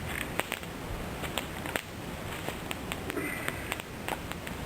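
Campfire burning damp wood, crackling with frequent irregular sharp pops and snaps; the spitting and sizzling come from moisture in the damp wood.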